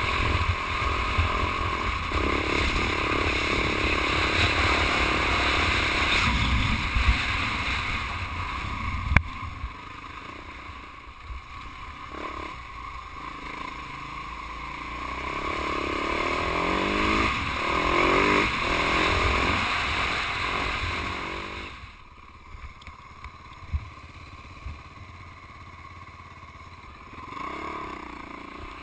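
Husaberg 450 FE single-cylinder four-stroke enduro engine running on the move, its note rising and falling with the throttle. A sharp click about nine seconds in, and the engine sound drops away sharply about two-thirds of the way through.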